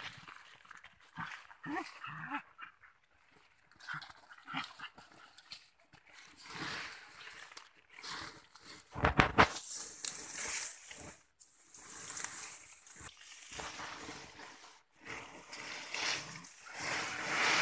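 Two young dogs play-fighting and making dog noises in short, scattered sounds, the loudest a short pitched cry about nine seconds in.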